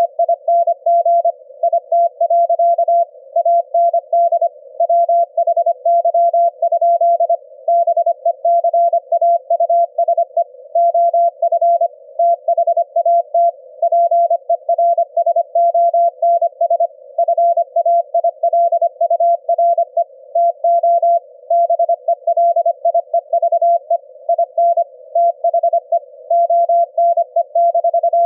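Morse code at 25 words per minute, heard as a single steady-pitched beep keyed rapidly on and off. It is the Quisk SDR receiver's demodulated audio of a CW signal sent at 25 hertz on the ELF band, over a faint band of receiver noise.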